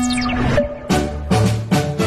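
Background music with no speech: a sweep that falls away in the first half second, then a light tune with evenly spaced chords over bass notes starting about a second in.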